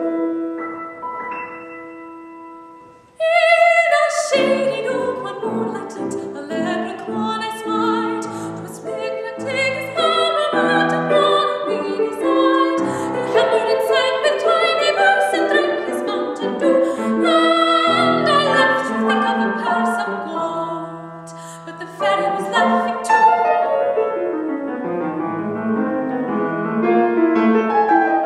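Soprano singing a classical art song with grand piano accompaniment. The piano plays alone for about the first three seconds, then the voice comes in suddenly and carries the melody over the piano.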